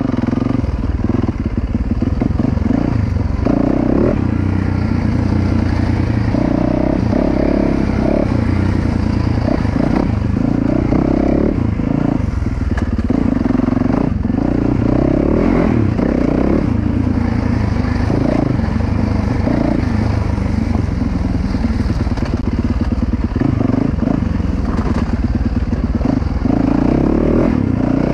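A 2019 Yamaha YZ450FX's 450 cc single-cylinder four-stroke engine running under way on a dirt trail. The throttle opens and closes, so the engine note rises and falls every second or two.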